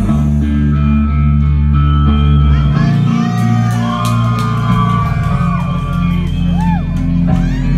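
Loud hip hop beat with deep, sustained 808-style bass notes and a guitar melody, with voices shouting over it.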